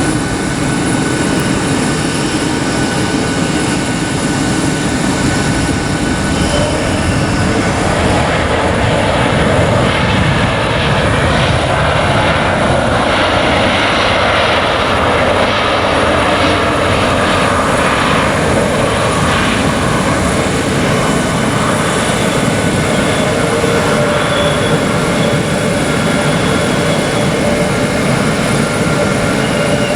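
Jet engines of a passing Wizz Air Airbus A320-family airliner: a loud steady noise, with a whine that swells and then falls in pitch through the middle.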